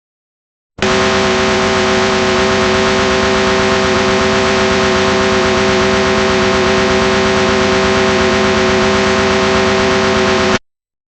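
Analog TV static: a loud, steady hiss with a few steady humming tones under it, starting abruptly about a second in and cutting off sharply near the end.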